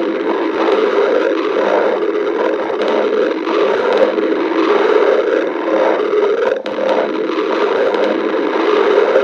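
A person's stomach growling: a continuous rumble that wavers in level, dipping briefly about six and a half seconds in.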